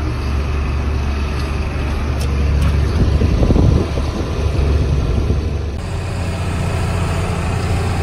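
John Deere farm tractor's engine running steadily, heard from inside the cab, with a louder, rougher stretch about three to four seconds in. Near six seconds in the engine note changes abruptly.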